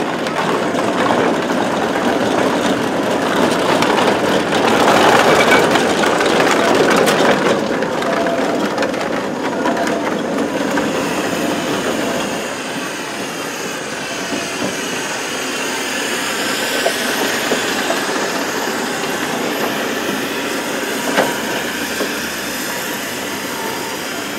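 Steam wagons driving past on the road, their engines running with a mechanical clatter. It is loudest over the first several seconds as one passes close, and quieter after about twelve seconds.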